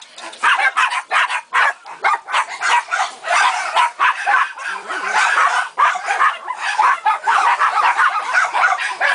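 A chorus of many shelter dogs barking and yipping at once, with calls overlapping continuously and no pause.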